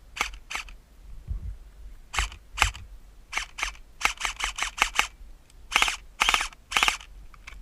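Airsoft guns firing: about fifteen sharp shots in uneven singles, pairs and quick runs, with the loudest cluster near the end.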